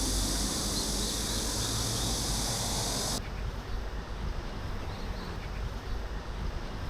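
Outdoor park ambience: low wind rumble on the microphone under a steady high hiss, with a few faint bird chirps. The high hiss cuts off abruptly about three seconds in, leaving the rumble and chirps.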